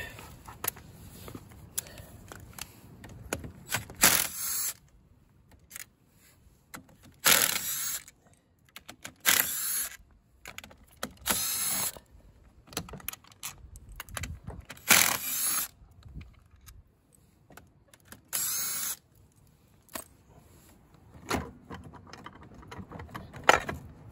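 Cordless drill spinning bolts out of a scooter's belt-transmission cover, in about six short runs of a second or less, with clinks of loosened bolts and metal parts between them.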